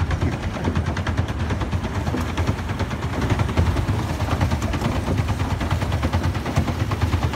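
Pedal boat under way, its paddle wheel and pedal drive churning the water with a rapid, steady clatter over a low rumble.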